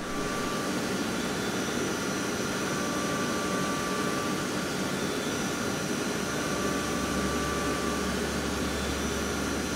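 Kitamura CNC milling machine cutting under flood coolant: a steady hiss of coolant spray with a few faint steady high tones over it. A low hum joins about seven seconds in.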